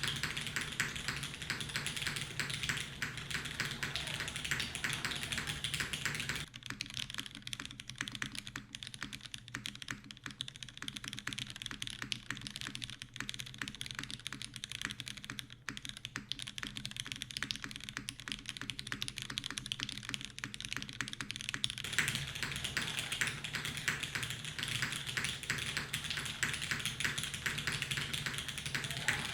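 Continuous fast typing on a custom mechanical keyboard: lubed Cherry MX Black linear switches in an aluminium plate, under GMK keycaps. It makes a dense, steady stream of keystroke clacks.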